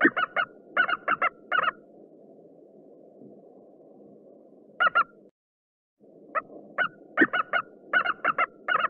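Eagle calling in quick runs of short, high notes: a burst of about nine at the start, two near the middle and another long run in the second half. Under the calls is a steady low background noise that cuts out for under a second just after the middle.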